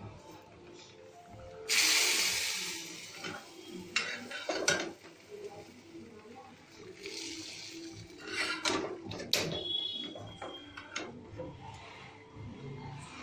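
Metal spatula scraping and knocking in a nearly empty aluminium kadai, gathering up stuck-on spice residue, with a loud hiss about two seconds in. Faint music runs underneath.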